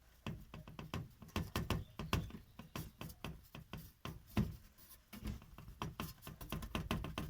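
Exhaust pipe under a Renault Logan knocking repeatedly, a quick irregular clatter of several knocks a second. The owner traces it to the pipe lying on the frame because a section of it has burnt through.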